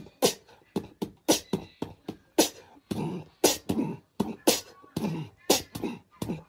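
Rhythmic beatbox-style mouth percussion: short sharp puffs and clicks, about three a second, with a few short voiced bits around the middle.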